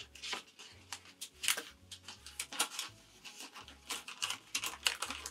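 Paper release liner being folded and peeled back from a sheet of stick-and-tear embroidery stabilizer: irregular crisp crackles and rustles, several a second.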